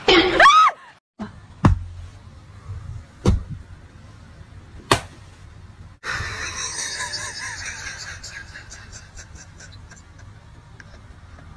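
A short, loud cry that slides up and down in pitch, then three sharp hand slaps about a second and a half apart as hands are slapped down in a stack on a fabric couch cushion, followed by a steady faint hiss.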